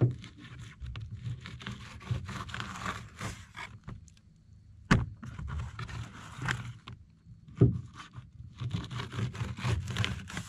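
Fillet knife slicing and scraping through crappie fillets against cardboard in several stretches, with three sharp taps, the loudest about three quarters of the way through.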